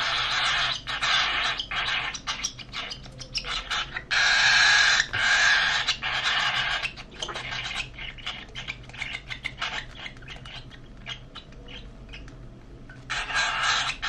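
Baby cockatiel begging for food while being hand-fed formula: a rapid, raspy chittering. It runs loud and almost unbroken for about the first six seconds, breaks into short separate bursts, dies down to faint calls for a few seconds, then starts up loud again near the end.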